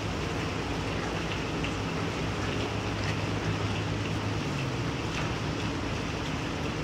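Pond paddlewheel aerator running: steady churning of water with a low motor hum that eases about four and a half seconds in.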